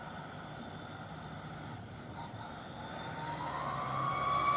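Laden Hino Dutro truck's diesel engine approaching up a steep climb under load, growing steadily louder, with a whine rising in pitch from about three seconds in.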